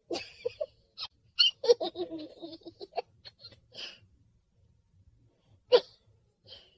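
A person laughing in short, broken bursts, with one sharp burst near the end.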